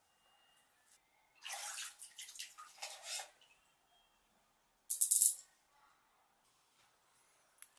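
Bath water sloshing in a bathtub for about two seconds, then a short, louder splash about five seconds in.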